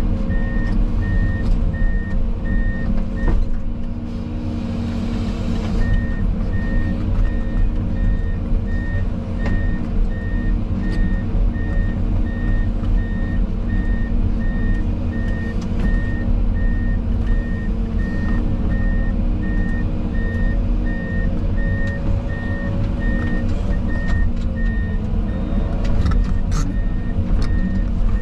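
Heavy diesel machinery engine running steadily under a reversing alarm beeping in an even rhythm. The alarm pauses for a couple of seconds about four seconds in, while a short burst of hiss sounds.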